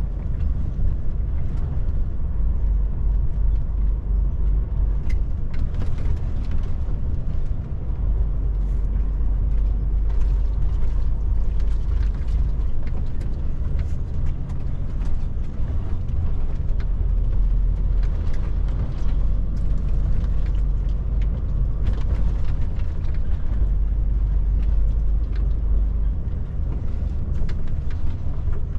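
DAF truck's diesel engine and tyre noise heard inside the cab while driving: a steady low drone, with scattered light clicks and knocks throughout.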